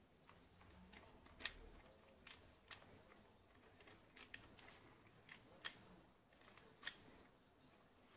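Faint, irregular clicks and light knocks, about ten of them, from hands handling a Snow Wolf Kar 98k spring-powered airsoft rifle replica.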